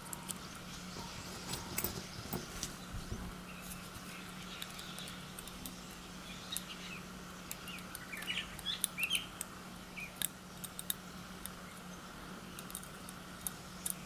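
Faint, irregular metallic clicks and ticks of a lock pick lifting and setting the pin tumblers of a brass padlock held under tension. Small birds chirp in the background, most clearly a little past halfway.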